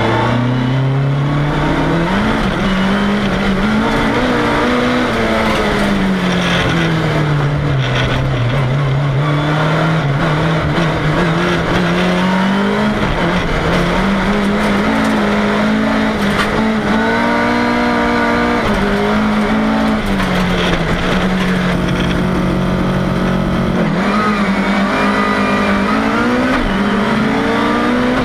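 Volvo 340's engine heard from inside the cabin while racing hard, its note climbing and dropping again and again as the driver accelerates and lifts, over steady road noise.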